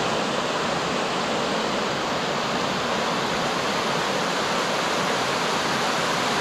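River water rushing steadily over a low stone weir and its rocks.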